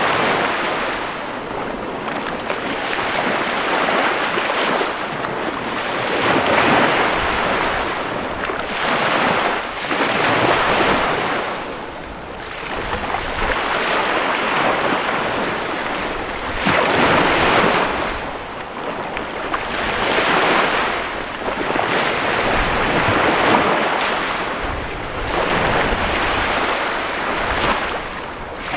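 Small bay waves breaking and washing up a sandy shore, each surge swelling and fading every few seconds.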